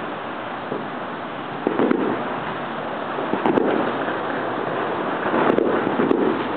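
Fireworks bursting off in the distance: a series of irregular booms and sharp cracks over a steady rushing hiss, the strongest group near the end.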